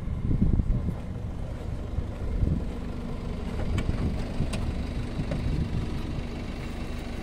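A vehicle engine idling steadily, with wind buffeting the microphone. A couple of light clicks come about four seconds in.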